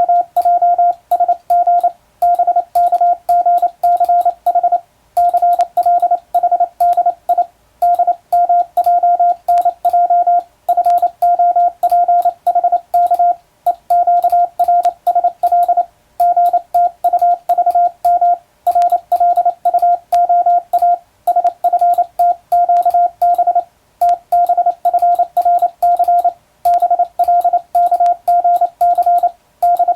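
Morse code sent by hand on a telegraph key, heard as a single steady beep tone keyed on and off in a fast string of short and long beeps (dots and dashes), with brief pauses between words.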